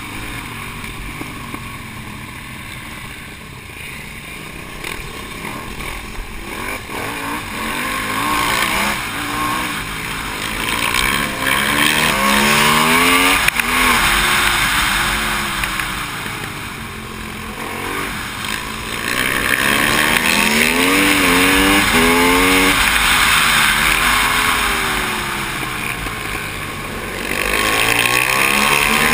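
Aprilia SXV supermoto's V-twin engine racing. The revs climb in repeated rising sweeps through the gears as it accelerates, then drop away as it eases off between them.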